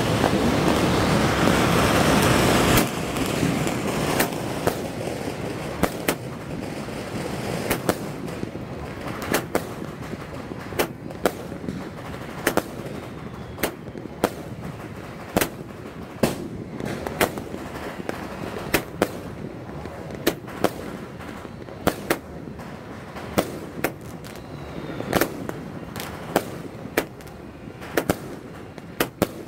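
A 100-shot consumer firework cake (GLK Freedom Forever) going off. A loud hiss from the lit, sparking box runs for about the first three seconds and cuts off suddenly. Then come sharp shots and aerial bursts in an irregular string, roughly one or two a second.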